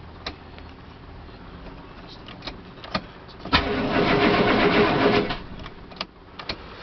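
Starter cranking a cold 6.2 diesel V8 for just under two seconds, about halfway through, then stopping without the engine catching: the glow plugs aren't heating. A few sharp clicks come before and after.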